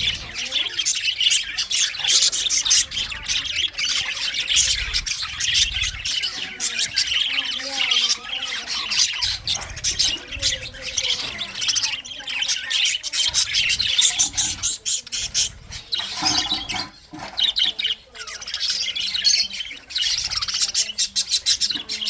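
English (exhibition) budgerigars chattering continuously, a dense stream of quick chirps and short sharp calls.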